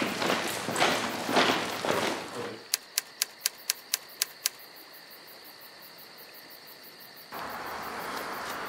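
Footsteps walking on outdoor ground, then a typewriter sound effect: seven or eight sharp key clicks, about four a second, as on-screen title text types itself out. After a near-quiet pause, a steady outdoor background hiss cuts in near the end.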